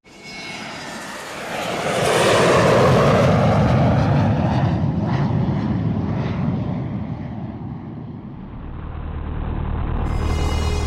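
Light aircraft's piston engine and propeller running: the sound swells louder about two seconds in, then slowly eases off.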